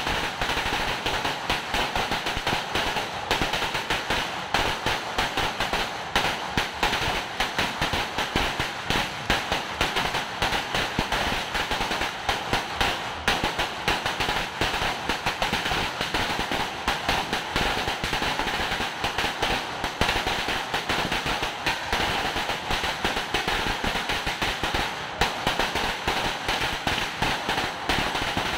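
A sawa, a long Philippine string of firecrackers hung on a pole, going off in a continuous, rapid crackle of bangs.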